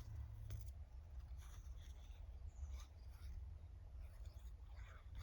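Faint, scattered rustles and light scrapes of paper and stickers being handled on a craft table, over a low room hum.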